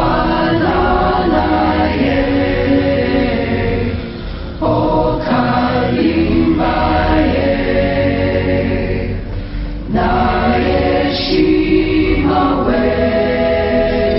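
Background music of choral singing: voices in long held phrases, with breaks between phrases a little before halfway and again near the end.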